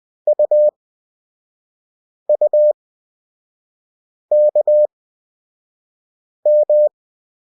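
Morse code practice tone at a steady pitch near 600 Hz, sending four characters about two seconds apart: dit-dit-dah, dit-dit-dah, dah-dit-dah, dah-dah (U, U, K, M). The beeps are quick, at 20-words-per-minute character speed, with long Farnsworth gaps between characters.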